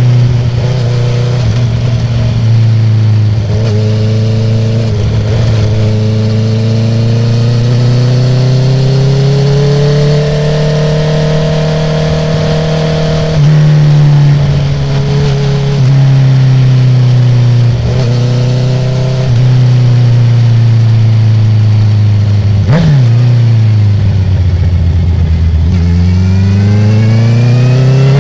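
2019 Honda CB650R inline-four engine through an Akrapovic titanium full exhaust with the dB killer removed, revving up and down through the gears. The pitch climbs and falls with sudden steps at quickshifted gear changes. There is one sharp exhaust pop a little past the middle, and then the revs drop and climb again near the end.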